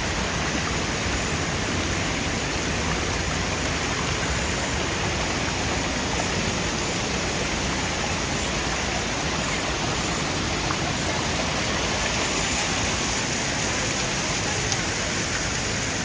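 Waterfall water cascading down over boulders in a steady, unbroken rush.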